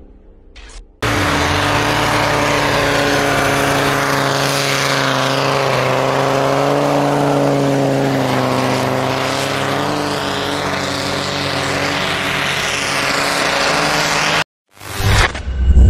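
Off-road 4x4 engines labouring under load in deep snow, with tyres churning. A steady drone whose pitch drifts slowly up and down starts about a second in and cuts off suddenly near the end.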